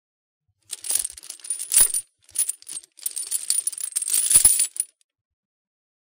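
Metal chain rattling and clinking in two stretches with a short break between, with two heavier knocks.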